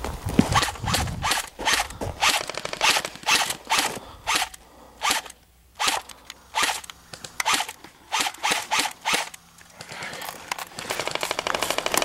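Footsteps crunching on gravel and brushing through dry desert scrub, a sharp stroke about three times a second. Near the end an electric airsoft rifle opens up in a long full-auto burst, a fast even rattle, dry-firing with no BBs feeding.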